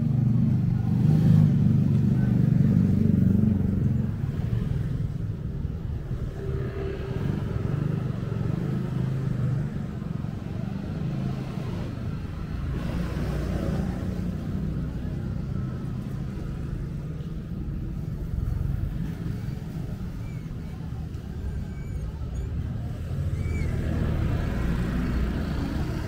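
Street traffic: a motor vehicle's engine runs close by and loudest for the first few seconds, then fades into a steady low rumble of passing traffic.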